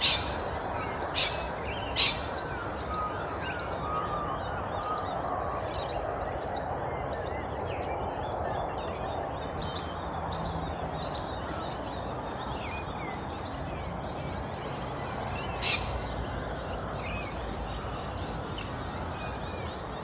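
Wild birds chirping: a few loud, sharp chirps in the first two seconds and again near sixteen seconds, with fainter chirps scattered throughout, over a steady rushing background noise.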